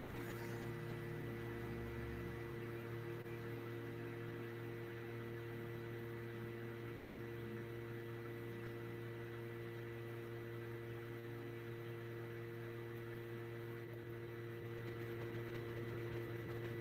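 Steady electrical hum made of a few fixed low tones, with one brief dip about seven seconds in.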